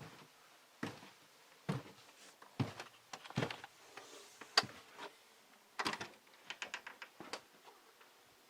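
Footsteps on a hard floor, about one a second, followed by a run of small irregular knocks and clicks.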